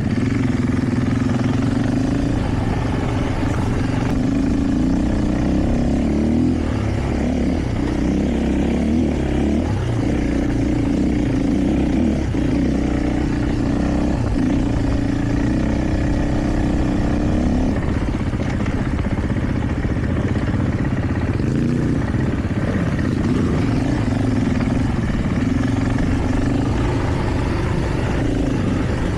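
KTM 450 EXC enduro motorcycle's single-cylinder four-stroke engine running under way, its pitch shifting a little as the throttle changes.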